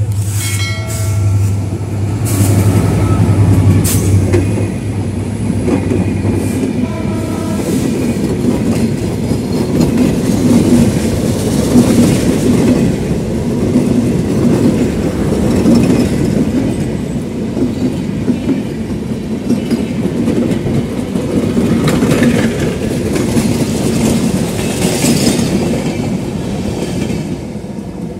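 Bangladesh Railway diesel-electric locomotive approaching with a strong low engine drone. A few short pitched tones come in the first few seconds and again about seven seconds in. Then the passenger coaches pass close by with loud wheel rumble and clickety-clack over the rail joints, which fades near the end as the train draws away.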